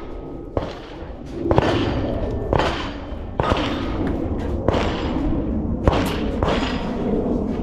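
A string of about seven sharp .22 rimfire gunshots, roughly a second apart, each with a short echo trailing after it.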